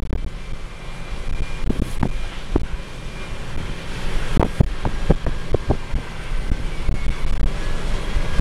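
Hi-rail truck's engine running with a steady low rumble as its hydraulic grapple crane swings, with scattered sharp knocks, several coming close together about halfway through.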